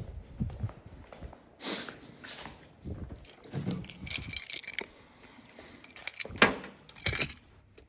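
Irregular metallic clinking and jangling from metal parts being handled, with a few sharper knocks near the end; no engine running.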